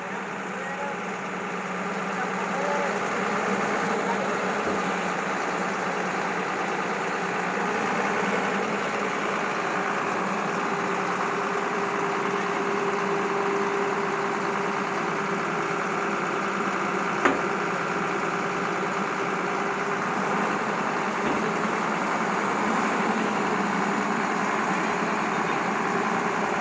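Heavy construction machinery engine running steadily at a constant speed, with one sharp knock about two-thirds of the way through.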